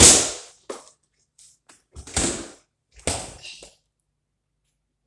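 Plastic snack cups being pulled and torn apart from their multipack: three short, sharp tearing noises, the first the loudest, the second about two seconds in and the third a second later.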